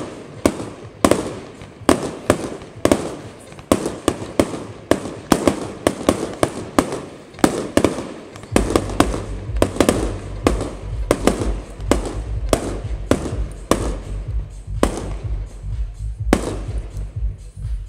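Fireworks going off in a rapid string of sharp bangs, several a second, thinning out near the end. About halfway in, music with a deep pulsing bass beat starts up underneath.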